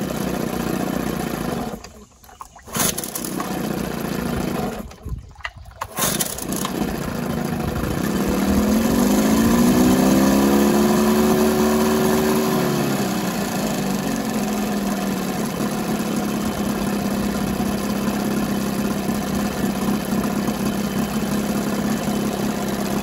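1979 Johnson 15 hp two-cylinder two-stroke outboard running in a test barrel after repair. About eight seconds in the throttle is opened and the engine revs up, then it drops back to a steady idle by about fourteen seconds. The sound cuts out briefly twice near the start.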